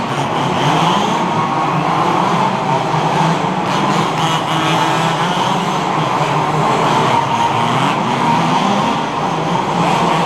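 Several 1/5-scale HPI Baja RC cars' small two-stroke petrol engines racing together. Their overlapping engine notes rise and fall without a break.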